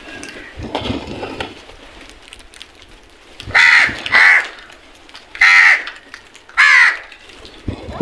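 House crows cawing: four loud harsh caws, the first two in quick succession about three and a half seconds in, then two more about a second apart.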